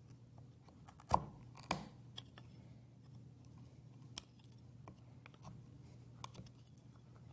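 Hand chisel paring the rounded corners of a routed mortise square in wood, heard as a few faint, sharp clicks and scrapes, the two loudest about a second in, over a faint steady hum.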